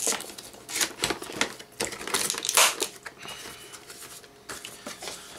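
Hands opening a cardboard Marvel Legends action figure box: an irregular run of clicks, scrapes and rustles from the packaging, loudest about two and a half seconds in, then quieter handling.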